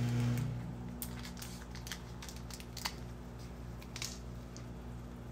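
A steady low hum cuts off about half a second in. Then come a scattering of small sharp clicks and taps as small model-kit parts are handled and fitted together, with the loudest near the end.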